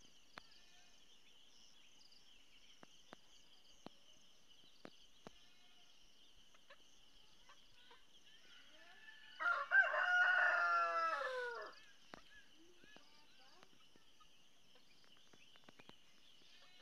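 A rooster crows once, a single call of about two seconds near the middle, its pitch dropping at the end. Under it runs a steady high-pitched hum with a few faint ticks.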